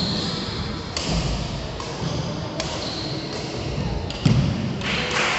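Badminton rally: a few sharp racket strikes on the shuttlecock, a second or more apart, over voices in the hall.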